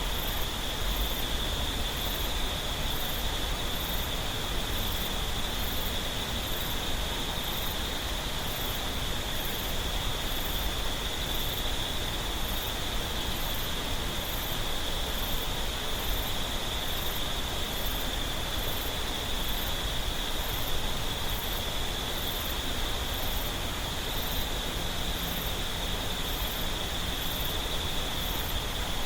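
Clear mountain stream water flowing over rocks, a steady rushing murmur. Under it runs a steady high insect trill, and faint, very high chirps repeat about once a second.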